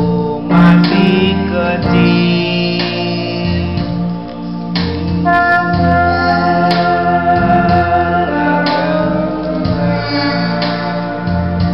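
A young girl singing a slow hymn over an electronic keyboard backing with organ-like held chords that change every second or so.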